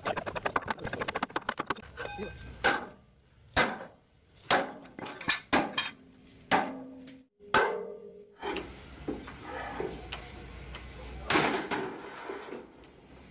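Sledgehammer blows on a steel truck chassis rail, each a sharp metallic clang with brief ringing, at irregular intervals of about half a second to a second. A fast run of lighter metallic taps comes in the first two seconds, and a few scattered hits follow later.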